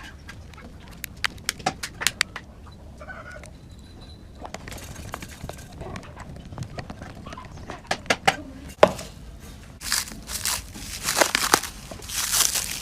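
Hands working on a phone under repair: a run of sharp clicks and taps in the first few seconds, then loud bursts of crinkling, tearing noise near the end.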